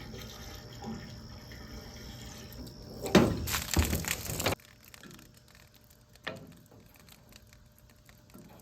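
Water from a hose running into an outdoor wood boiler's water tank as it is topped up to full. About three seconds in, the water gets much louder, splashing for about a second and a half, then stops suddenly, leaving only a few faint knocks.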